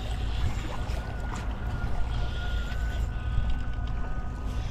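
Wind buffeting the microphone with a low, steady rumble, over small water sounds at the shoreline, and a faint thin whine through the middle.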